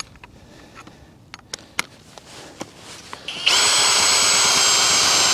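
A few faint handling clicks, then about three and a half seconds in a Ridgid cordless drill starts and runs steadily with a whine, on its low speed setting. It is screwing a Deep Freeze ice anchor into the ice through a drill adapter.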